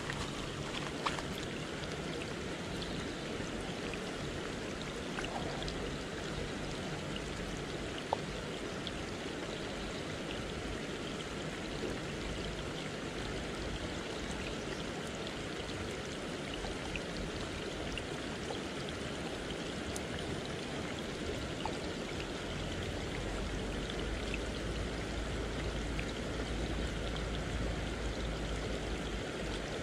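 Steady rushing hiss of water with scattered small ticks like falling drops, from light rain and the flooded water's surface. A low rumble comes in about two-thirds of the way through.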